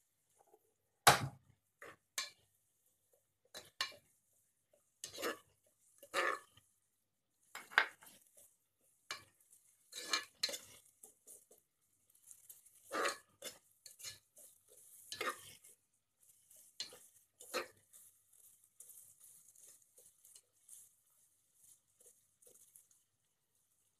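A spoon scraping and clinking against the aluminium pressure cooker as sliced onions are stirred in hot oil, in irregular strokes that grow softer in the second half, over a faint sizzle of frying.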